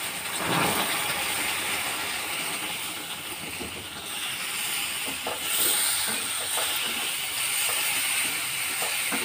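Hot water sizzling and hissing as it hits ghee-roasted wheat flour and sugar in a hot metal pan, while a wooden spatula stirs the mix with light scrapes.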